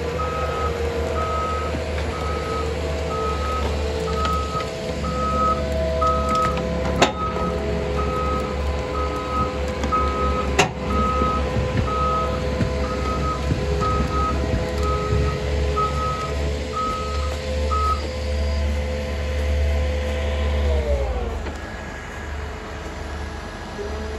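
John Deere forwarder's diesel engine running under load while its reversing alarm beeps about once a second; the beeping stops near the end and the engine then drops off with a falling tone. Two sharp knocks sound partway through.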